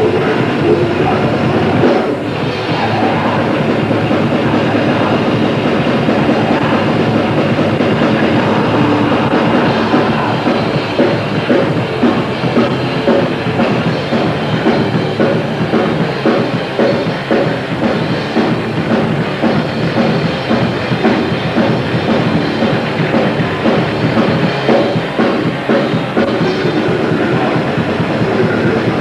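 Grindcore band playing live: heavily distorted guitars and fast drumming in a dense, loud wall of noise.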